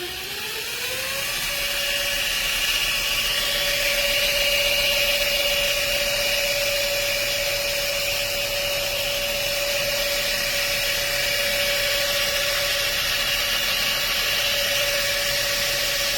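2x72 belt grinder running: its motor whine rises as it comes up to speed in the first second or so, then holds steady with the hiss of the belt over it.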